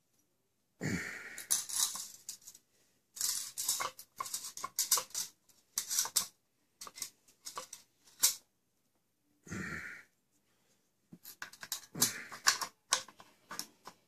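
Metal parts of a Wilson Combat magazine tube extension for a shotgun being handled and fitted: irregular clicks and rattles as the tube, spring and follower are worked by hand, with a longer rasping scrape about a second in and again near ten seconds.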